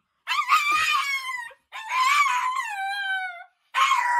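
A small dog howling: three long howls in a row, starting about a quarter of a second in, each sliding down in pitch as it ends.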